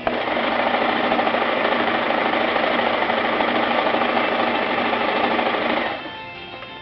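Brother XL2030 electric sewing machine running at speed, a steady fast stitching clatter that starts abruptly and stops about six seconds in.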